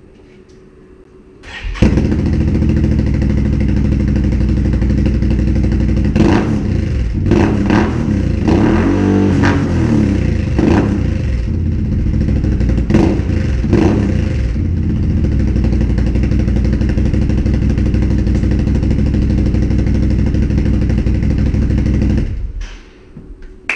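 Can-Am Outlander XMR 1000R's V-twin engine breathing through a Yoshimura slip-on exhaust. It starts about two seconds in and idles, is revved in several quick blips in the middle, then idles again and shuts off near the end.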